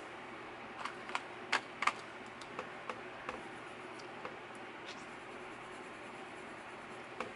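Light clicks and taps of wooden colored pencils being handled in their metal tin, a few close together in the first two seconds and fainter ones after, as a pencil is chosen and drawn over a painted swatch card.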